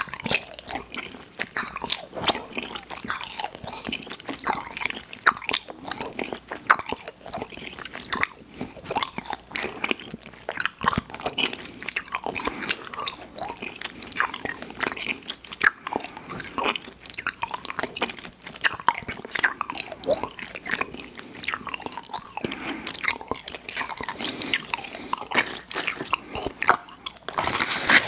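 Close-miked chewing and biting of sweets, a continuous run of small mouth clicks and smacks.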